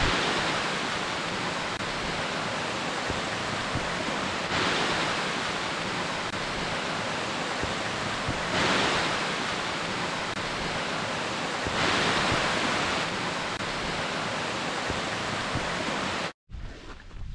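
Two small waterfalls on a moorland stream, a steady dense rush of falling water that swells slightly every few seconds and cuts off suddenly near the end.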